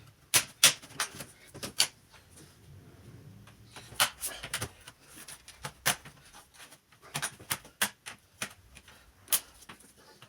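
Irregular sharp clicks and taps of a small screwdriver and the laptop's plastic case and parts being handled during disassembly, in loose clusters with short pauses between.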